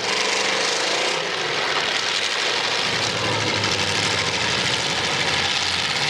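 Several full-size demolition derby cars' engines running hard and revving together, a continuous dense engine noise whose pitch wavers up and down in the first second.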